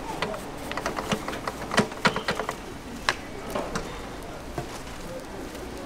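Light clicks and knocks on cast-iron bungeoppang (fish-shaped bread) molds as they are oiled with a brush and handled, a quick irregular run of taps with a few sharper knocks near the middle.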